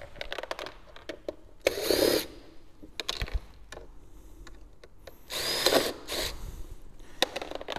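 Cordless AEG drill-driver spinning out the plastic bumper's fog-light screws in several short bursts, its motor pitch rising and falling with each one. Small clicks and rattles of handling come between the bursts.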